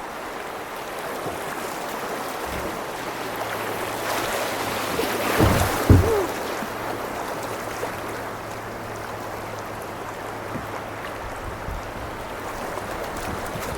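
River rapids rushing around a kayak, the water growing louder in the middle, with two low thumps about five and six seconds in.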